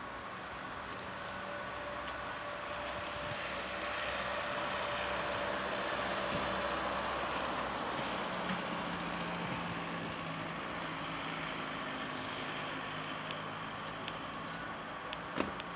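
Steady background traffic noise that swells to a peak around the middle and slowly fades, as of a motor vehicle passing, with one sharp tick near the end.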